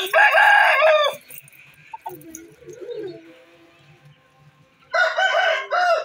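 Roosters crowing: two loud calls of about a second each, one at the start and one near the end, with a fainter, lower call in between.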